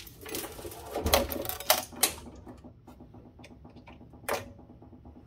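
Metal parts of an instrument chassis clattering and clicking as they are handled, with a quick cluster of knocks in the first two seconds, a few faint ticks, and one sharp click a little past four seconds.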